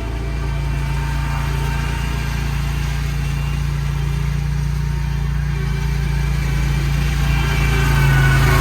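The mini snowcat's small engine running steadily, growing a little louder near the end.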